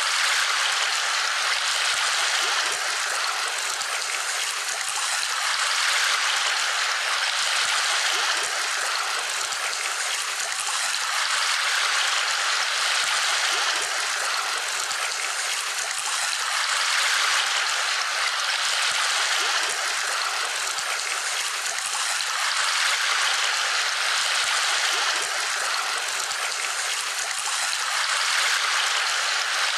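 Steady rushing noise like a running stream, swelling and easing gently every five or six seconds.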